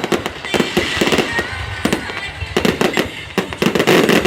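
Fireworks going off in quick, irregular bangs and crackles, with dense clusters of shots.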